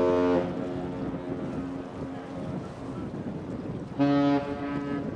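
Ship's horn sounding: a long blast cuts off about half a second in, and a short blast follows about four seconds in. Wind rushes on the microphone between the blasts.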